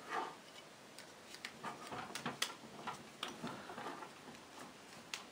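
Faint, scattered light clicks and taps from handling the removed aluminium side cover and parts of a 156FMI 125cc motorcycle engine.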